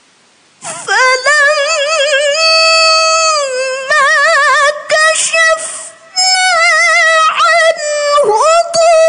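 A female Quran reciter chanting in the melodic tilawah style: long, ornamented held notes with a wavering vibrato. She comes in about half a second in and pauses briefly for breath about six seconds in.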